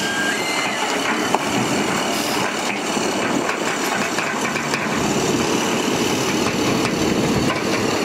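Heavy diesel engines of a Shantui crawler bulldozer and a mud-mired dump truck running steadily, with scattered knocks and clanks, one sharper about a second and a half in.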